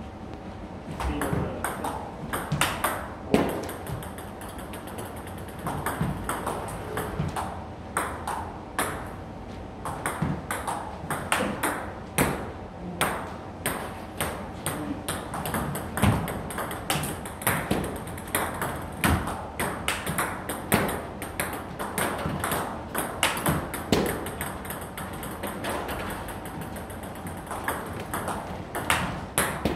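Table tennis rally: a ball clicking back and forth off the bats and the table in a quick, even pattern of sharp pocks, one bat faced with Tibhar Hybrid MK rubber.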